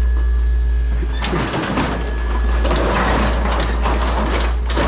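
Tangled cables and small plastic electronics being rummaged through and handled, rustling and clattering from about a second in, over a steady low hum.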